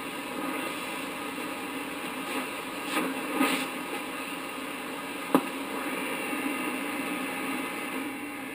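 Static and interference hiss from a Hallicrafters S-108 tube shortwave receiver's built-in speaker as it is tuned slowly across the 40-meter band, with a few brief swells and one sharp click about five seconds in.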